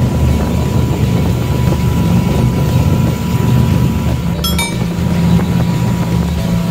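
Small fishing boat's engine running steadily under way, a low rumble mixed with wind on the microphone. A short clicking blip sounds about four and a half seconds in.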